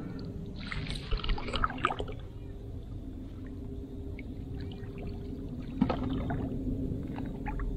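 Water splashing and pouring out of a hand scoop net worked in shallow water, once for about a second near the start and again briefly about six seconds in.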